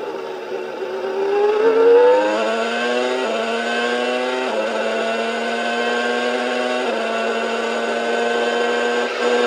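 Williams-Renault FW16 Formula One car's V10 engine heard from the on-board camera at full throttle. Its pitch climbs for the first two seconds or so, then holds high, dropping a step at gear upshifts about four and a half and seven seconds in.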